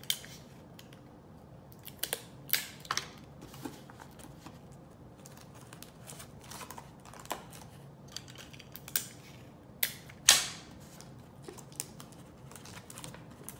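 Adhesive tape being pulled off the roll, torn and pressed around a paper cap on the end of a cardboard paper towel tube: irregular crackles and short rips, the loudest and longest rip about ten seconds in.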